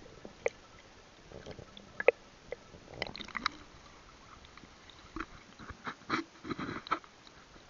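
Scattered knocks and clicks with some water sloshing, muffled through a small action camera's waterproof case as it is lifted out of a duckweed-covered water tank. The clicks come in two clusters, about three seconds in and again near the end.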